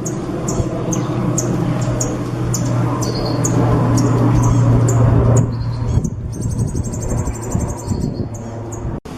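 A songbird calls in short, sharp, high chirps, about two to three a second, and about six seconds in breaks into a fast, high trill of rapidly repeated notes. Under it runs a steady low hum with background noise.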